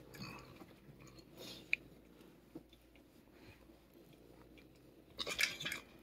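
Faint rustling of a thick leather glove rubbing against a cat's fur, with scattered small clicks. Near the end comes a louder, brief scuffle as the cat lunges and bites the glove.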